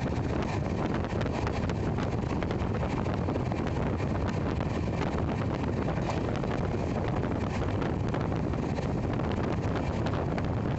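Steady running noise of a passenger express train in motion, with wind buffeting the microphone.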